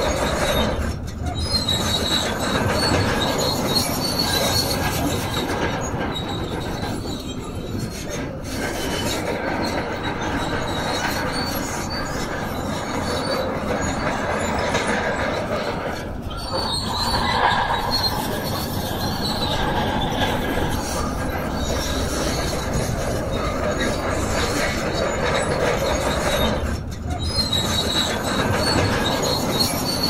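Crawler bulldozer working, likely the Shantui DH17C2: steel tracks squeal and clank continuously over the running diesel engine, easing briefly a few times.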